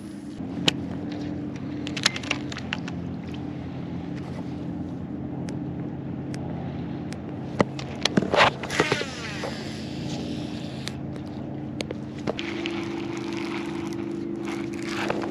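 A small motor running with a steady hum, its pitch stepping up near the end. A few clicks and a scrape sound about eight seconds in.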